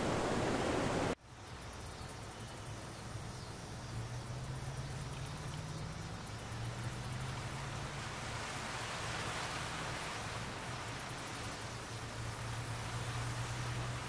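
Upper Mesa Falls waterfall rushing loudly, cut off abruptly about a second in. It gives way to a much quieter outdoor ambience with a low steady hum and faint, fast ticking high in pitch.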